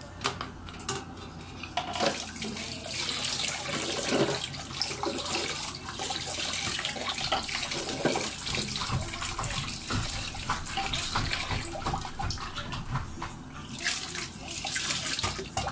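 Water running and splashing over a plastic electric-fan grille as it is rinsed by hand, with frequent light knocks and clicks of the grille.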